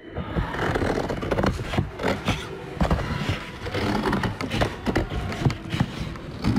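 Scissors cutting the white border off a paper art print: repeated snips, with the paper strip rustling and scraping.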